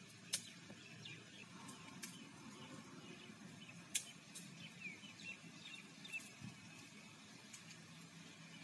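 Faint outdoor ambience: a low steady rumble, a few sharp clicks (the loudest just after the start and about four seconds in), and faint bird chirps around the middle.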